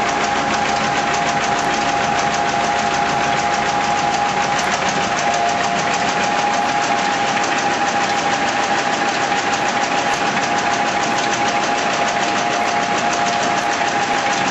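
Fordson Dexta's three-cylinder diesel engine running steadily with a fast, even beat, a steady whine running alongside it.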